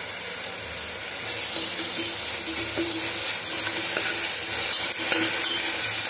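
Chopped onions, curry leaves and green chillies sizzling in hot oil in a stainless steel pressure cooker while ginger-garlic paste is stirred in; the steady sizzle gets louder about a second in.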